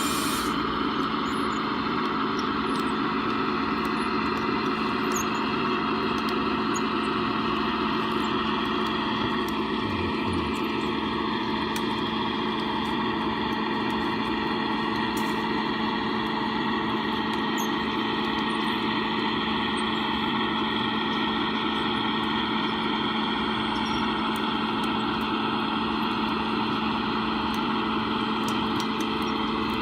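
1/14-scale RC Caterpillar D11 bulldozer running steadily: a continuous mechanical drone with a constant low hum and higher whining tones that shift a little in pitch.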